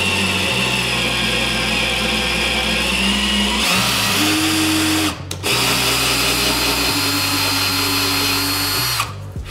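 Cordless drill driving a tap to cut threads into a hole in 3 mm aluminium plate, its motor running with a steady whine. It stops briefly about five seconds in, runs again, and stops near the end.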